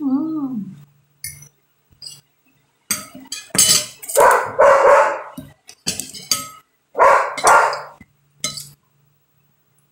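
A dog barking, several barks in two groups, about three to five seconds in and again around seven seconds, while a fork and knife clink against a glass plate.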